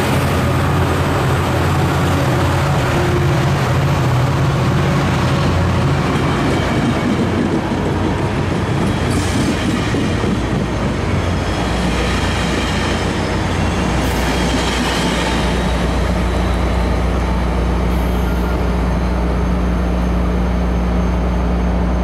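Caltrain bi-level passenger cars rolling past close by as the train pulls out, the wheels running over the rails with clatter and a steady low hum underneath. There are a few brief sharper sounds in the second half.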